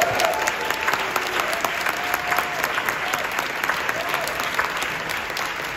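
Audience applauding loudly, a dense steady clapping with a few voices cheering over it.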